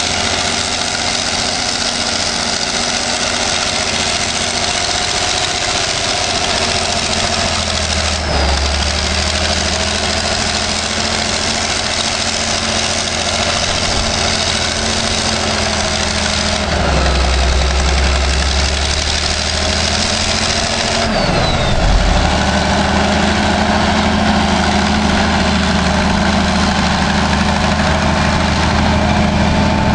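Caterpillar 988 wheel loader's diesel engine running hard as the machine drives, its pitch dipping briefly and recovering three times.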